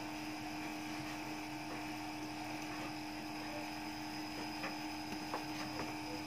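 Steady hum of several fixed tones, with a few faint clicks in the second half as a flat ribbon cable is worked into its connector on a DVD player's loader.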